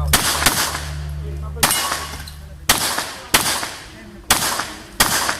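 Gunshots fired in practice: about six sharp reports spaced roughly a second apart, each with a ringing tail.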